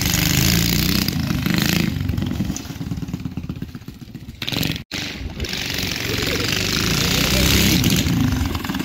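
Mini bike's small engine running as it is ridden, fading as the bike moves away, dropping out for an instant near the middle, then growing louder again as it comes back close.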